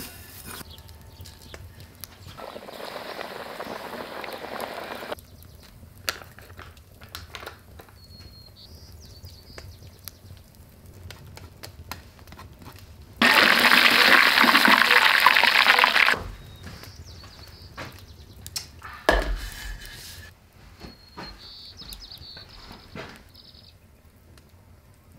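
Food-preparation sounds: scattered soft taps and clicks, a few seconds of gentle hiss early on, and about halfway a loud steady rush of noise lasting about three seconds that starts and stops abruptly.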